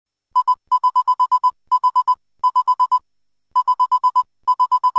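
Rapid short electronic beeps at one pitch, about eight a second, a typing-style sound effect with one beep for each letter of an on-screen title. They come in short runs with brief pauses between them, one run per word.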